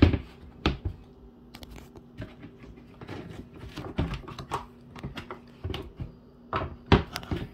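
Irregular clicks and light knocks of a plastic tool-bin lid being handled and set onto the bin, the sharpest at the start and near the end.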